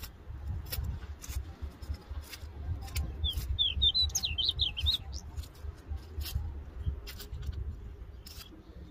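A small bird twitters in a quick run of high chirps about three to five seconds in. Under it are scattered short clicks and scrapes of a hand trowel working loose soil, and a low rumble.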